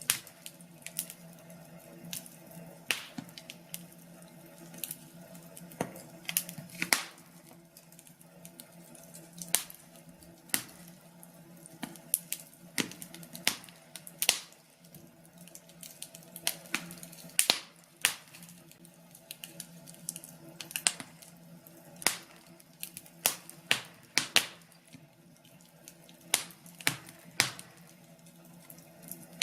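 Wood fire crackling: irregular sharp pops and snaps at uneven intervals, some louder than others, over a faint steady hum.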